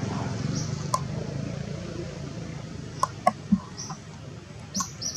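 Outdoor ambience: a low rumble that fades after about two seconds, with several short sharp clicks, three of them in quick succession around the middle, and a few brief high hisses.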